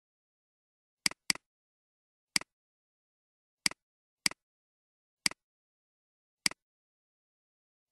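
Computer mouse button clicks, seven in all, each a quick press-and-release double tick, in total silence otherwise. Two come close together about a second in, and the rest are spaced about a second apart.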